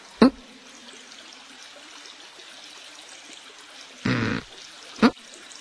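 Steady trickle of running water in a hot-spring bath. A short, sharp swish sound comes about a quarter of a second in and another near the end, with a brief voice sound about four seconds in.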